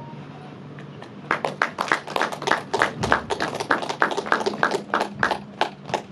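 Audience clapping: distinct, separate claps at about five a second, starting a little over a second in.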